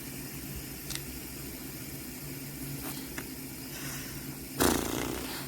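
Fidget spinners spinning, a steady low whirring hum. A few faint clicks, and a short louder noise about four and a half seconds in.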